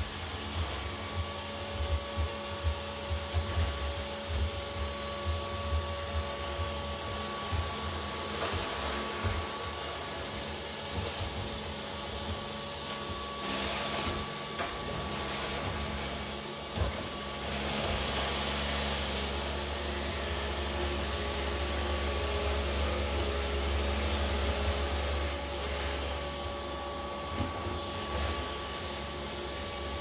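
Neato D7 robot vacuum running: a steady motor hum with a thin whine. It is broken by irregular low knocks over the first several seconds, and the hum is steadier and a little louder from a bit past halfway.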